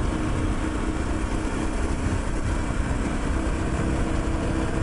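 Motorcycle riding at a steady speed: an even engine drone mixed with wind and road noise.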